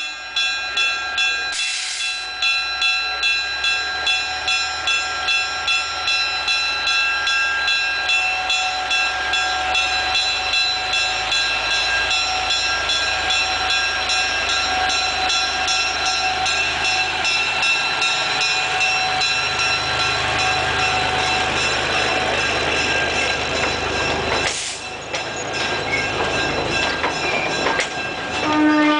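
Bell on a small narrow-gauge diesel locomotive ringing over and over at a steady rhythm as the train rolls slowly past, with the engine running and the wheels clicking on the rails. A low horn note starts right at the end.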